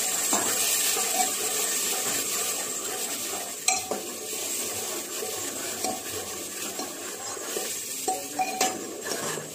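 A spoon stirring sambar masala simmering in water in a pressure cooker, the liquid sizzling steadily. The spoon clinks sharply against the pot about halfway through and again near the end.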